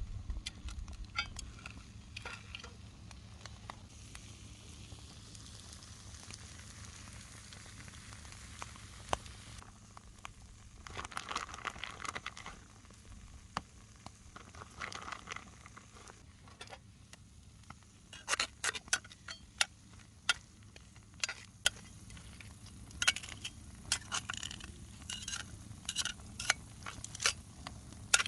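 Potato-chip and mozzarella galette sizzling in a pan over a wood campfire, with crackling and sharp clicks and taps that come thick and fast in the second half.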